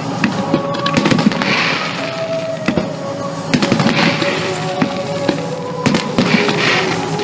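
Fireworks bursting and crackling in quick succession, with music playing throughout.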